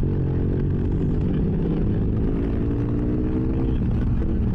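BMW F800S parallel-twin engine running through an aftermarket GPR exhaust with its dB killer removed, holding a steady note under way, with a brief change in pitch near the end. It is heard from inside the rider's helmet, with road and wind noise underneath.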